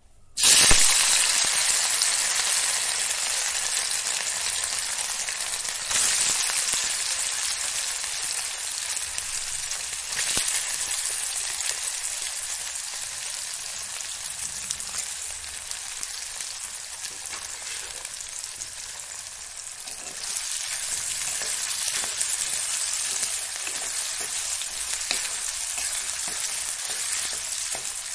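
Sliced smoked chicken sausage frying in hot oil in a metal wok: a loud sizzle that bursts up as the slices hit the oil, then goes on steadily and swells again a few times. Near the end a wooden spatula stirs the pieces.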